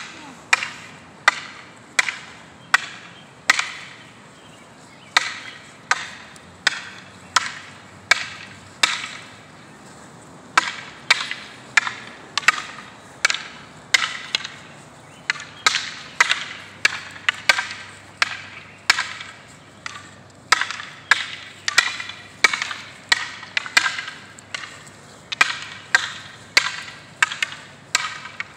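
Long wooden training staffs clacking together in a two-person Filipino martial arts drill: sharp, ringing wood-on-wood strikes in a steady rhythm, about one or two a second, with a couple of short pauses.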